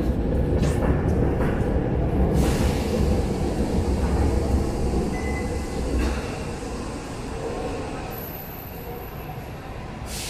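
Jakarta MRT train rumbling past on the elevated track. The low rumble fades away after about six seconds.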